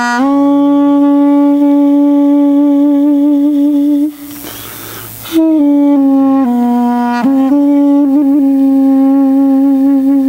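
A solo wind instrument plays a slow melody of long held notes with vibrato. It breaks off for a breath about four seconds in, then goes on with a few note changes.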